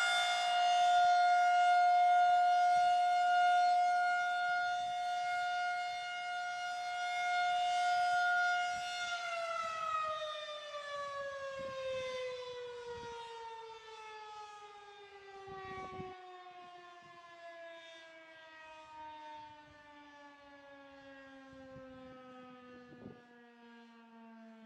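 Federal Signal 2001-SRN electromechanical warning siren holding its steady alert tone, then, about nine seconds in, winding down: the pitch slides steadily lower and the sound fades as the rotor slows at the end of the alert.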